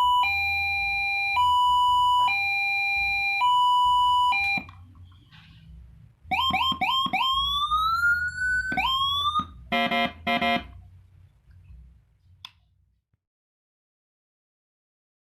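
Landun PJR police-escort siren sounding through a 10-watt TOA horn speaker and stepping through its tones. It plays a two-tone hi-lo, alternating about once a second, for the first four and a half seconds. After a short pause come a run of quick rising whoops and a longer rising wail, then a rapid stuttering horn tone about ten seconds in, before it cuts off.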